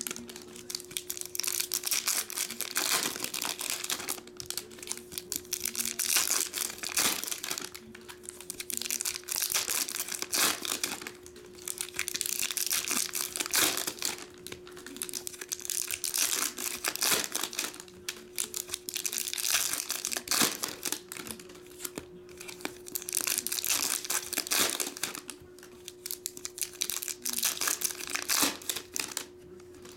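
Foil trading-card pack wrappers being torn open and crinkled by hand, in repeated bouts of crackling.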